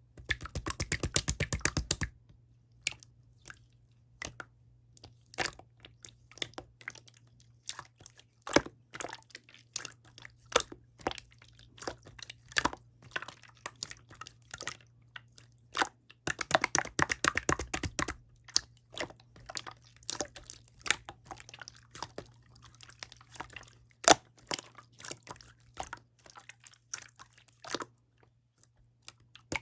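Clear slime being squished and pressed, giving sticky clicks and small pops, with two spells of fast crackling: one at the start and one about halfway through.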